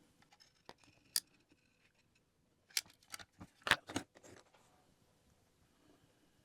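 Light, sharp clicks and taps of small hard objects being handled at a workbench: a couple of single clicks, then a close cluster of them about three to four seconds in.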